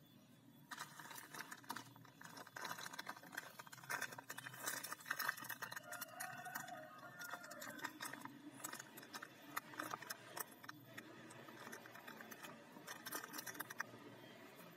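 Thin clear plastic parts bag crinkling and rustling as it is handled and squeezed, with small plastic toy-kit parts inside clicking against each other. It starts about a second in and goes on irregularly.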